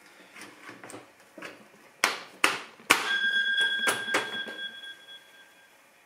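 Panel being pushed and knocked into place on a steel PC case: light clicks and knocks, then three loud knocks, the last setting the metal ringing for a couple of seconds while a few more knocks land.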